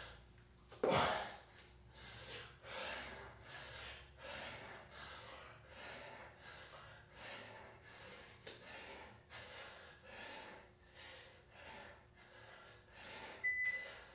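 A man breathing hard and fast during push-ups, a quick, even train of heavy mouth breaths with one sharper exhale about a second in. Near the end a single short beep from an interval timer counting down.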